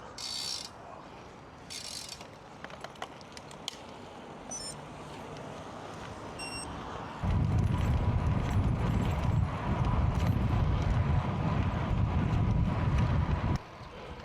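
Wind rumbling over the microphone of a road bike being ridden at speed. It starts abruptly about seven seconds in and cuts off shortly before the end. Before that there is quieter riding noise with a couple of short hissing bursts and a few scattered clicks.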